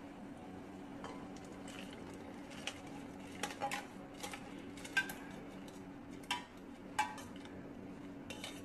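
A metal spoon clinking against a metal cooking pot, a few irregular clinks with a short ring, over a faint steady low hum.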